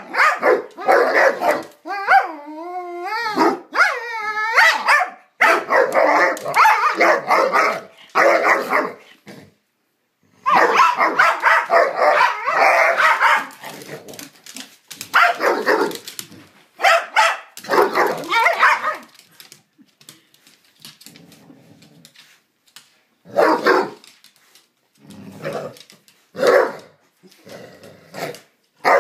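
Two basset hounds barking and growling at each other while play-wrestling. Wavering, drawn-out yowls in the first few seconds give way to a long stretch of rough barking and growling, then a lull and a few short separate barks near the end.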